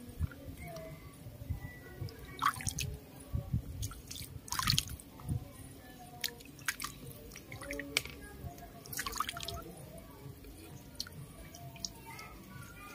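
Water splashing and dripping in a plastic basin as a newborn monkey is held and bathed in it, in several short splashes, the biggest about two and a half, four and a half and nine seconds in.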